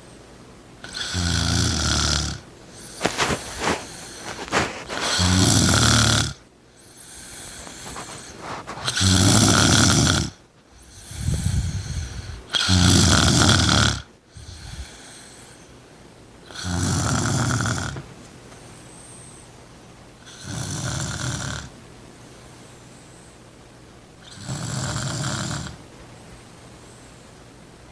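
A woman snoring really loud in her sleep: nine long snores, coming unevenly and close together at first and then settling to about one every four seconds.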